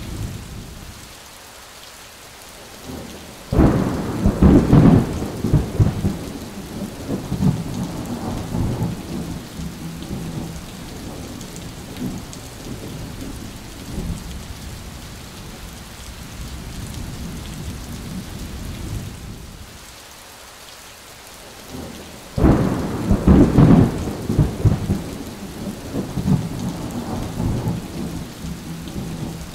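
Steady heavy rain with two peals of thunder, one about three and a half seconds in and one about twenty-two seconds in, each starting suddenly and rumbling on for several seconds.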